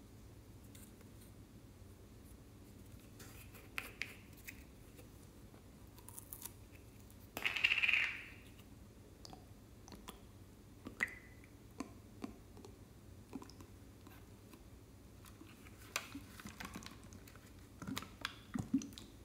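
A small plastic bottle of slime being handled and opened: scattered clicks and crinkles of the plastic, with one louder rustle about eight seconds in. Near the end come a few soft sounds as the slime is squeezed out of the bottle.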